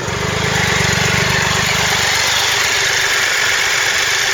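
Triumph Tiger Explorer's three-cylinder engine idling when fully warmed up; the low engine note is fuller for about the first two seconds, then settles softer.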